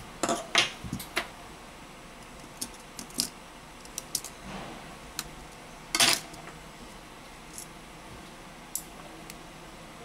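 Scattered small clicks and taps from a disassembled smartphone and its plastic and metal parts being handled with a screwdriver and set down on a silicone repair mat. Several clicks come in the first second, and the loudest clatter comes about six seconds in, as the phone is turned over on the mat.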